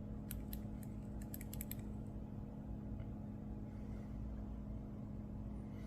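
A quick run of light, sharp clicks in the first two seconds as a 1950s Benrus self-winding wristwatch is handled, over a low steady hum.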